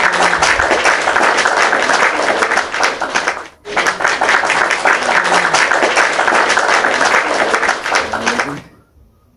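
Audience applause, a dense clatter of clapping that breaks off for a moment about three and a half seconds in, then resumes and stops abruptly about eight and a half seconds in.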